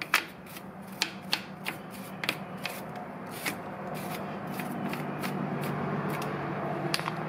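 Hand wire brush scrubbing dirt and corrosion off the hub mounting face of a BMW i3 rear wheel carrier: irregular scratchy strokes, about two or three a second, over a steady low hum that grows a little louder in the second half.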